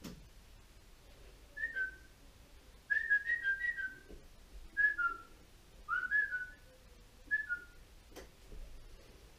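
Someone whistling a handful of short phrases, each one or two quick falling notes, with pauses between them. There is a sharp click at the very start and another near the end.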